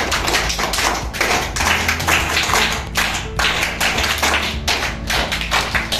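A roomful of children applauding, many hands clapping in a dense, uneven patter.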